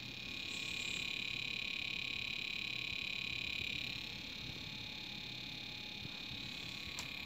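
HP ProLiant ML350 G6 server's cooling fans running with a steady high-pitched whir. The whir is louder for the first four seconds, then a little quieter, and a single short click comes near the end.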